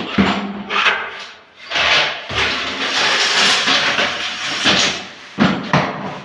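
Knocks and bangs of a door or window being handled, with a sliding rush lasting a few seconds in the middle, as of a sash running along its track.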